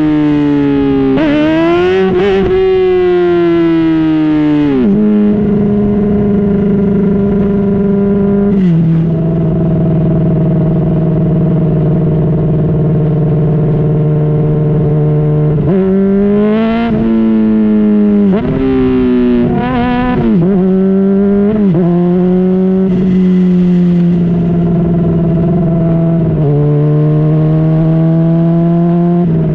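2010 Honda CBR600RR's inline-four engine through a Yoshimura slip-on exhaust, heard from the moving bike. The revs climb and drop several times, with a quick run of rises and falls around the middle, between long stretches at steady engine speed.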